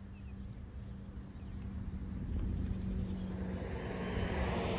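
A motor vehicle engine droning, growing steadily louder as it approaches.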